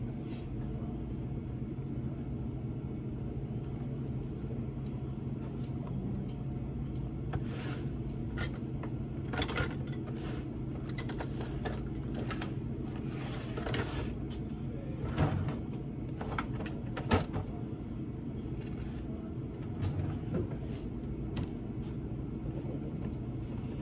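Checkout counter handling: scattered clicks, rustles and knocks of goods being picked up and bagged, with two louder knocks about fifteen and seventeen seconds in, over a steady low background hum.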